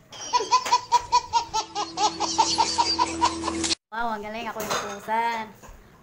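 People laughing hard: a fast, rhythmic run of laughs that cuts off abruptly a little past halfway, followed by more wavering laughter.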